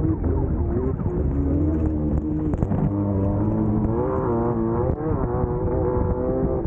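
Class 1600 off-road race buggy's air-cooled four-cylinder engine running hard; its pitch dips and climbs several times as the throttle comes off and back on, over steady rumble and rattle from the rough ground.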